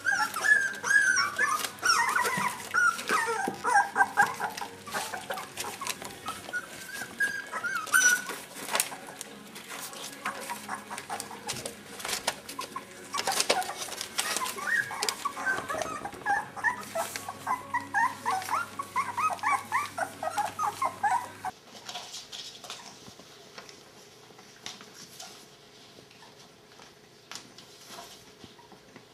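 Three-week-old Border collie puppies whimpering and squealing in high, wavering cries, in two spells with a lull between, over the rustle and crackle of newspaper under their paws. In the last quarter the cries stop and only faint rustling remains.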